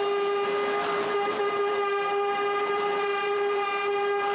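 A vehicle horn held in one long, unbroken single-note blast, sounded by the protest convoy of tractors and trucks.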